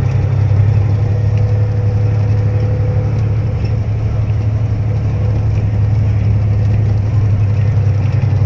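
Truck engine and road noise heard inside the cab while driving: a steady low drone with no change in pitch.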